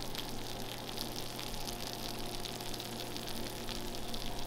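Food sizzling in a hot pan: a steady crackle of small pops over a faint steady hum.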